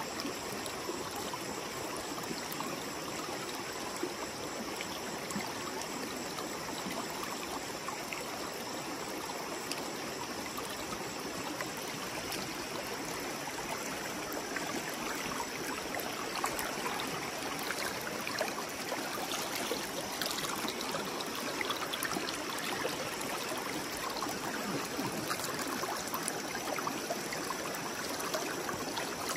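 River water flowing steadily, an even rushing noise without pause.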